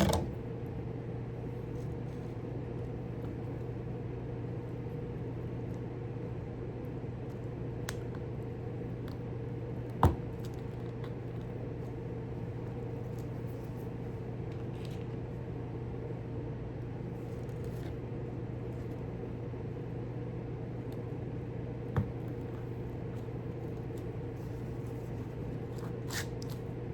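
Steady low electrical hum from a machine running in the room, with a few isolated small clicks or knocks, the sharpest about ten seconds in and another around twenty-two seconds.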